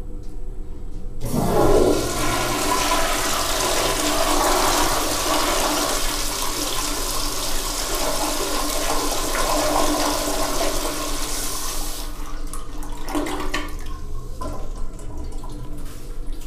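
American Standard Madera-style flushometer toilet flushing: a sudden loud rush of water starts about a second in, runs strongly for about ten seconds while the water swirls down the bowl, then fades to a weaker trickle near the end.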